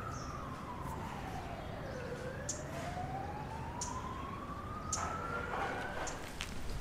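A single siren-like tone that slides down over about two seconds, then climbs slowly back up and stops about six seconds in, over steady background noise. A few short, sharp high chirps or clicks are scattered through it.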